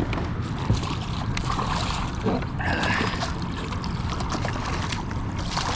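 Water splashing and lapping around a kayak while a striper is brought in, with wind rumble and scattered small knocks and clicks from the boat and gear.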